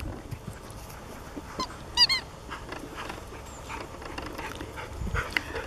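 A dog's squeaky toy ball squeaking: one short, sharp squeak about two seconds in, with a fainter squeak just before it.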